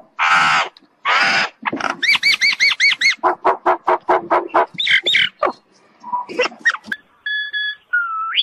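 Common myna singing a varied medley: harsh rasping notes, a run of quickly wavering warbled whistles, a fast clicking chatter, and near the end a few short steady whistles.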